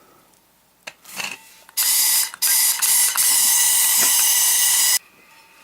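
Gas hissing steadily out of an unlit hand soldering torch whose valve has been opened, for about three seconds before it is shut off abruptly. A couple of light clicks come first.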